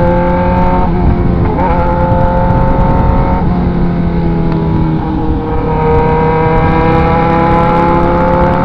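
Motorcycle engine running under way and pulling up through the gears. Its pitch climbs steadily, with a brief dip at a gear change about a second in and another just past the middle.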